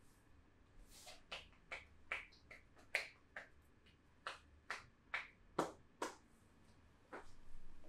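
A masseuse's hands giving percussive strokes on the back: about a dozen sharp slaps at an uneven pace, starting about a second in and stopping near the end.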